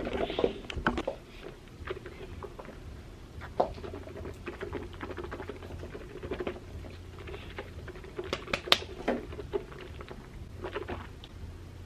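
Irregular light clicks and taps of a handheld phone camera being handled close to the microphone, over a faint steady hum; the clicks come thicker about eight to nine seconds in.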